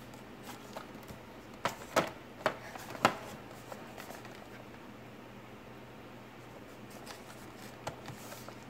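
Charger packaging handled: cardboard box and plastic blister pack knocking and tapping, with four sharp knocks in quick succession about two to three seconds in and a few lighter ticks near the end.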